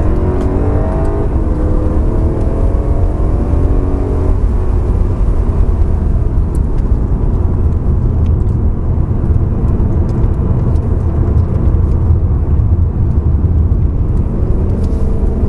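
BMW M3 on track, heard from inside the cabin. The engine note climbs and falls for the first four seconds, then gives way to a steady low rumble of road and wind noise as the revs drop. The engine note rises again near the end.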